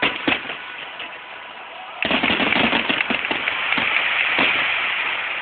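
Aerial fireworks: a few sharp bangs, then about two seconds in a dense crackling barrage of many rapid pops sets in and keeps going.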